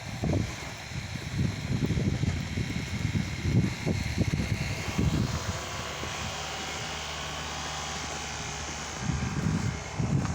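Blizzard wind gusting over the microphone in repeated low rumbles, over a steady hiss of wind and blowing snow. A low steady hum comes in about six seconds in and stops about three seconds later.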